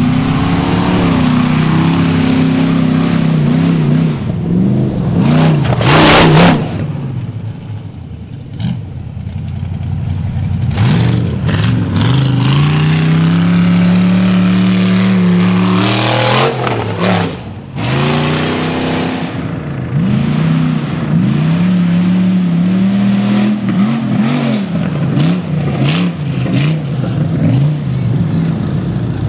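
Rock bouncer buggy's stroked LS V8 engine revving hard and unevenly as it races over a dirt track, its pitch climbing and dropping again and again. It is loudest about six seconds in and again around sixteen to seventeen seconds.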